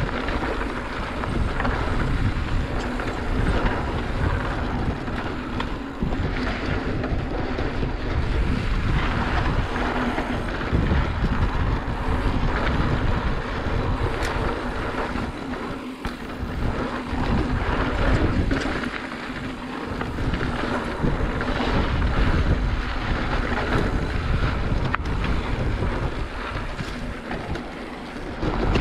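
Wind rushing over the camera microphone on a mountain bike riding fast down a dry dirt trail, with the rumble of the knobby tyres rolling over the dirt. The rush swells and eases with the riding.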